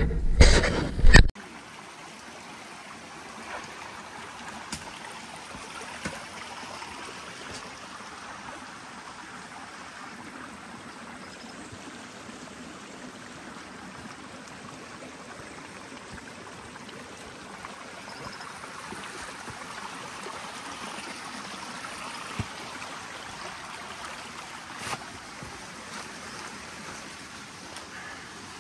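A small rocky creek running steadily, water rushing and trickling over stones, with a few faint clicks here and there. It opens with about a second of loud low rumble before the water sound takes over.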